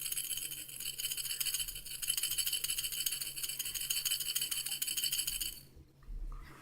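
Baby's rattle toy being shaken continuously with a fast, dense rattle, then stopping near the end.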